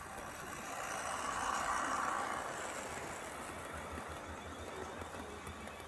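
Model train running past close by: the whir of the locomotive's small electric motor and its wheels rolling on the track. It swells as the locomotive passes and then slowly fades.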